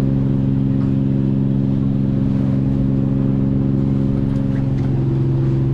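Engine aboard a fishing boat running at a steady speed, a constant low hum.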